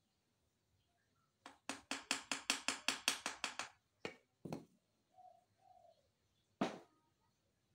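A quick run of sharp hammer taps, about five a second, then a few separate knocks, the last one ringing briefly. Between the knocks comes a faint two-note coo from a caged bird.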